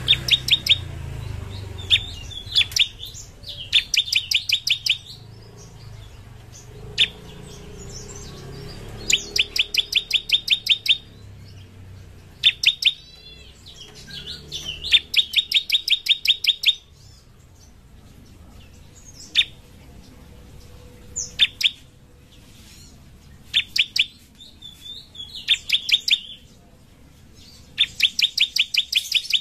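Bar-winged prinia (ciblek) singing. It gives quick trains of sharp, high notes, each train lasting one to two seconds, with single notes and short pauses between.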